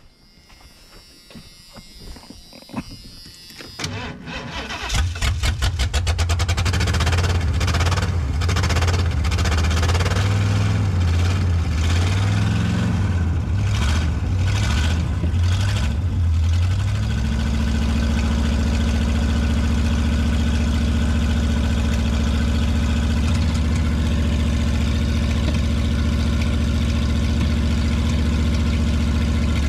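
A 1988 Ford E250 camper van's gasoline engine cranking over about four seconds in and catching a second later. It runs rough with revs rising and falling, then settles to a steady idle from about 17 seconds on. The engine has sat for years and is being revived with a new fuel tank and fresh spark plugs.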